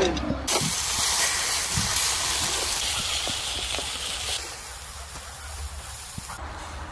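Romanian sausages sizzling on the wire rack of a charcoal grill over glowing embers, with a few light clicks as metal tongs turn them. The sizzle is loudest in the first few seconds and drops to a softer, steady hiss about four seconds in.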